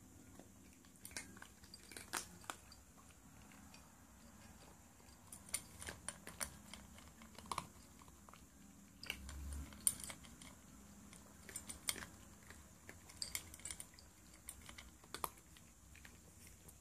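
Cat eating dry kibble from a stainless-steel bowl: irregular crisp crunches and clicks, often in quick clusters.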